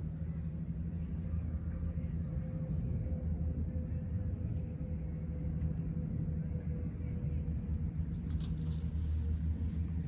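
Steady low outdoor rumble with a faint tone slowly falling in pitch, and a few faint high bird chirps.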